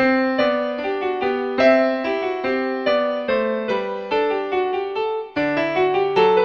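Piano music: chords and melody notes struck at a steady, moderate pace, each note dying away after it sounds, with a momentary break about five seconds in.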